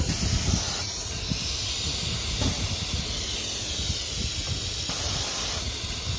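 Compressed air hissing from the CNC router's pneumatic spindle-lift cylinder as it is switched to move the spindle down or up. The hiss is steady and shifts in strength about two and a half seconds in and again near five seconds.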